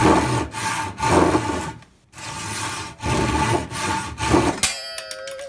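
Japanese pull saw cutting through the end of a wooden bench leg in quick rasping strokes, about two a second, with a brief pause partway. Near the end the cut finishes with a sharp click and a short metallic ring.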